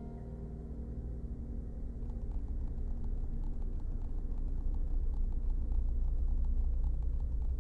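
A low, steady rumble that grows slightly louder, with faint crackling ticks over it from about two seconds in.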